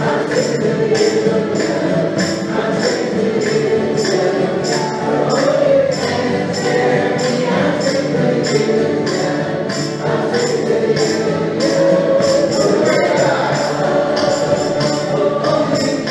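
A group of acoustic folk instruments, guitars and banjos, strumming a song together, with a tambourine shaken on a steady beat about twice a second.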